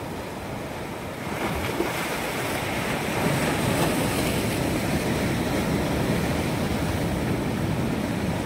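Sea surf breaking and washing over shoreline rocks, a steady rush of water that grows louder after about a second.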